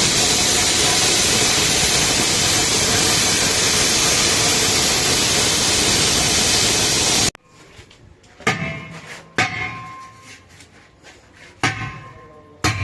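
A concrete slab cutter's blade grinding through concrete, a loud steady hiss-like noise that cuts off suddenly about seven seconds in. Then four sharp knocks with a short metallic ring, struck about a second apart.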